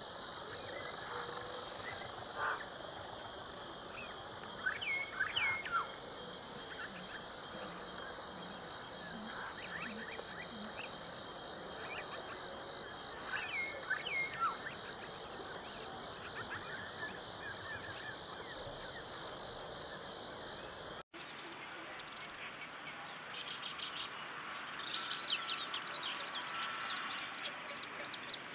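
Marsh ambience: a steady high-pitched insect drone with short bird chirps, a few around 5 and 14 seconds in and a quick run of them near the end. The background changes abruptly about 21 seconds in.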